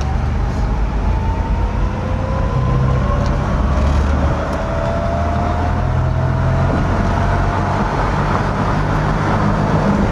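Home-built electric pickup truck driving in second gear, heard from the cab: a steady low road and drivetrain rumble with a thin whine that rises slowly in pitch as it gathers speed. A few faint ticks come through.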